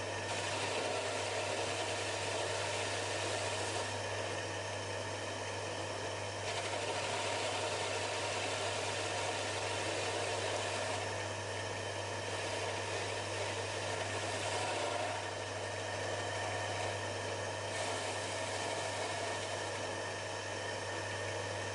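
Metal lathe running, turning down the shoulder of a steel lawn mower spindle: a steady motor hum under a cutting hiss that swells and eases every few seconds as the tool feeds in and backs off.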